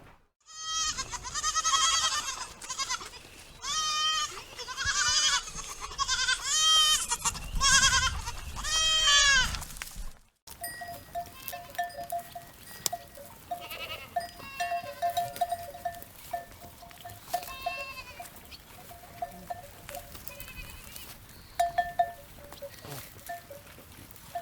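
Goats bleating loudly over and over, each call high and wavering, for about ten seconds. After a sudden cut, neck bells clink irregularly while goats bleat more faintly.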